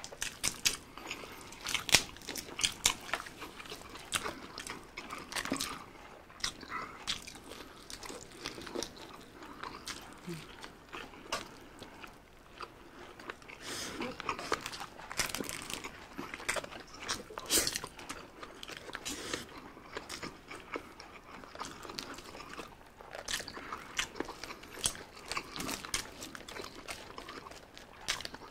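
Close-miked eating sounds: chewing and lip smacks, with many short irregular clicks, as two people eat chicken biryani and grilled chicken with their hands.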